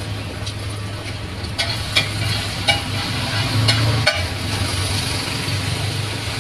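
Eggs sizzling on a large flat street-food griddle while a metal spatula scrapes across it and scrambles them, with a handful of sharp clacks of the spatula on the griddle in the middle. A steady low hum runs underneath.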